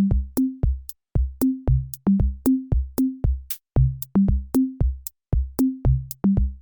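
Electronic music: a drum-machine beat of deep bass-drum hits and short synth bass notes, about three hits a second, with crisp high clicks on top.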